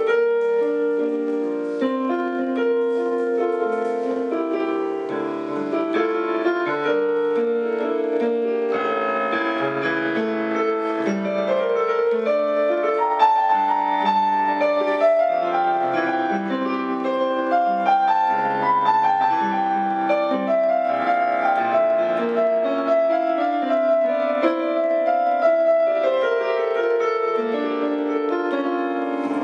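Solo piano music played with both hands on an electronic keyboard: a continuous stream of notes in the middle register, with the upper line climbing higher around the middle.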